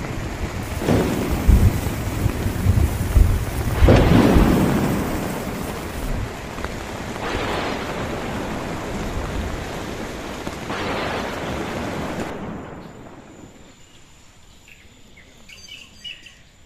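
Heavy rain beating on a tent's fabric during a thunderstorm, with thunder and gusts swelling every few seconds. The storm noise falls away about twelve seconds in, leaving a faint background with a few small ticks.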